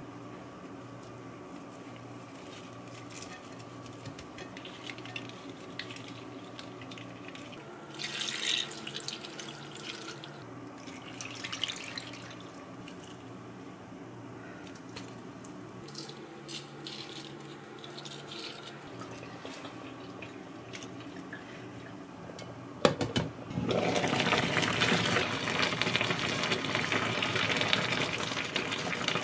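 Water poured into a pot of kimchi and pork in short splashes, then, after a sharp click, the kimchi stew boiling loudly while a wooden spoon stirs it.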